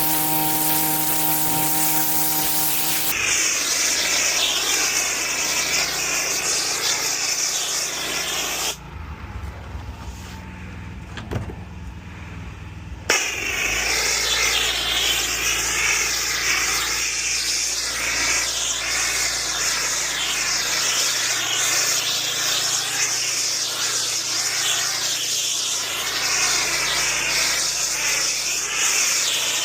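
Pressure washer spraying a high-pressure water jet onto patio paving: a loud hissing rush over the steady hum of the machine. The spray stops about nine seconds in, leaving only the machine's lower hum for about four seconds. It then starts again with a sharp onset and runs on.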